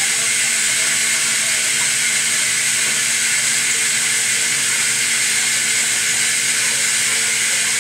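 Steady rushing hiss of water flowing through a residential water softener's Autotrol control valve in backwash, the flow reversed up through the resin tank to lift the resin and flush out accumulated iron and hardness. A faint steady hum lies under the hiss.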